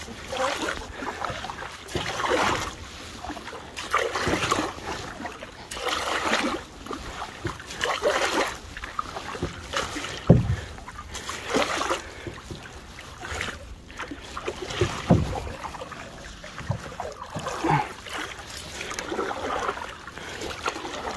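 Wooden canoe paddles pulling through calm water: a swish and gurgle with each stroke, about every two seconds, and two dull knocks midway.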